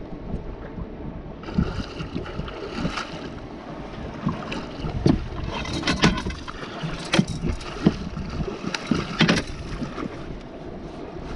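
Wind buffeting the microphone over choppy water, with a run of sharp knocks and clatters on the boat from about a second and a half in, as the landing net and rod are handled while a lake trout is brought in.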